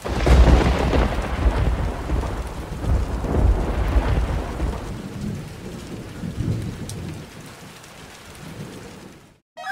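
Thunder rumbling over steady rain. It starts suddenly with the loudest rumbles in the first few seconds, fades away, and cuts off abruptly near the end.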